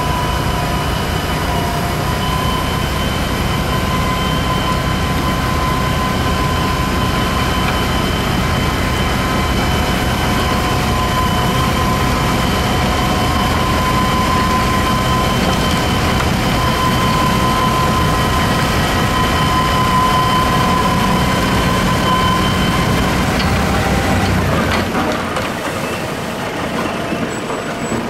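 Fendt 516 Vario tractor driving a front-mounted Dalen snow blower at work, a steady loud engine rumble with a high whine on top as the blower throws snow into a dump truck. Near the end the whine fades and the low rumble drops away.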